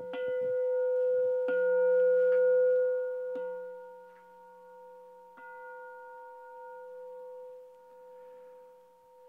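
Large Buddhist bowl bell (a Won Buddhist jwajong) struck several times about two seconds apart, after the chanting has ended. Each stroke renews a long steady ringing tone with a low hum beneath it, and the ring fades slowly toward the end.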